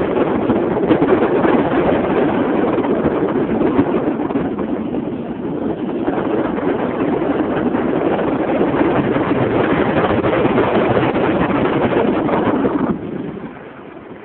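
Wind rushing over the microphone of a camera carried on a free-flying paraglider, a steady noisy rush with no engine in it. Near the end it suddenly drops much quieter.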